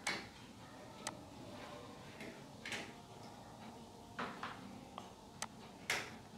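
Computer mouse buttons clicking, about six sharp, faint clicks spaced irregularly a second or so apart.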